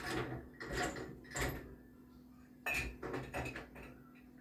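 Dishes and a small dishwasher's rack rattling and clattering as it is loaded, in two short spells.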